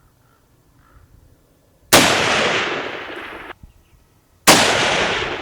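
Two rifle shots about two and a half seconds apart, each a sharp crack followed by a long rolling echo that dies away; the echo of the first is cut off abruptly.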